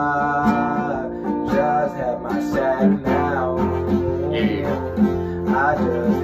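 Music: strummed guitar chords with a melody moving above them.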